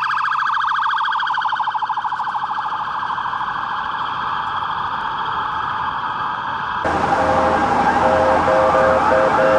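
Emergency-vehicle siren in a fast warbling yelp. About seven seconds in it cuts abruptly to a louder, denser wail of sirens with a repeating beeping tone.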